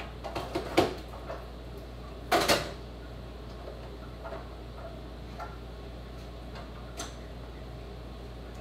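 Kitchen items being handled at a counter: a few light knocks and clicks, a louder clatter about two and a half seconds in, then a few faint taps over a steady low hum.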